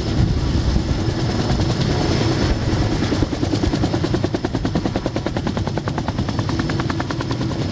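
Eurocopter EC130 helicopter running with its main rotor turning: a steady high turbine whine over a rapid, even chop from the rotor blades, which is clearest in the middle.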